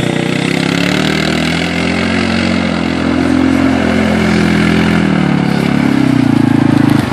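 Bennche Bighorn 700 side-by-side UTV's single-cylinder engine revving up and easing off as it spins doughnuts in mud. It is louder near the end as the machine comes toward the listener.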